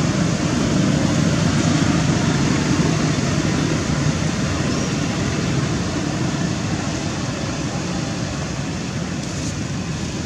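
Steady rushing background noise, heaviest in the low range and easing off slightly toward the end, with no distinct animal calls standing out.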